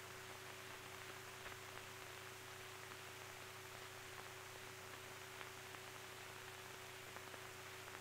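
Near silence: the faint steady hiss and hum of an old film soundtrack, with a few faint ticks.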